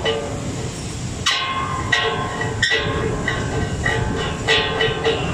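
A run of pitched notes, struck one after another and each fading, over a held lower tone: background music.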